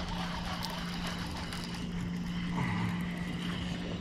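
A boat motor running with a steady, even hum.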